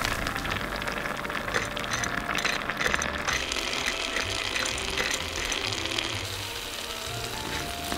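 Oil frying food in a miniature pan. It crackles densely for the first three seconds or so, then settles into a steadier sizzle.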